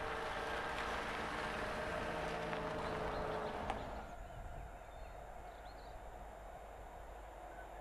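A van's engine and tyres running as it drives past close by, with a few light clicks. About four seconds in the sound drops away to a quieter steady outdoor hiss.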